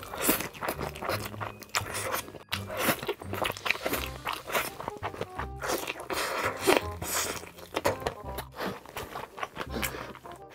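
Background music with a steady beat laid over close-miked eating sounds: crunching, biting and chewing of very large mouthfuls, broken by a few abrupt cuts between clips.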